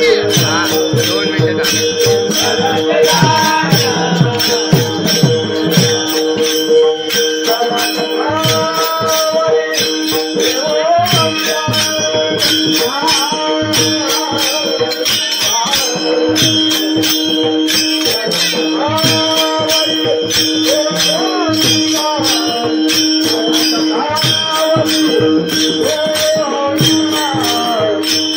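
Bhajan, a Marathi devotional song, sung by voices over a held drone note and steady metallic percussion.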